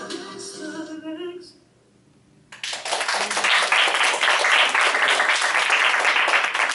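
The last sung notes of the song recording fade out, and after about a second of quiet a small audience breaks into steady, loud applause.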